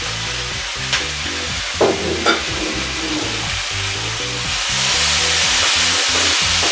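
Mushrooms and celery sizzling in a hot frying pan, the sizzle growing louder about four and a half seconds in, with a few short knocks about one and two seconds in. Light background music plays underneath.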